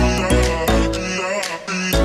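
Background music with a steady beat: deep bass hits, drum strikes and sustained instrumental notes.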